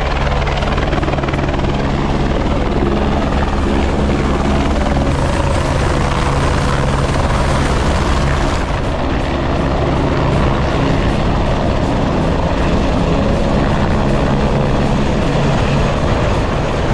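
Helicopter close by, its rotor beating and engine running loud and steady.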